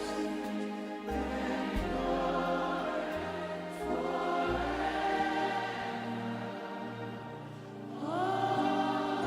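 Live gospel worship music: a choir singing long held notes over changing bass notes. Near the end a voice slides up into a new phrase.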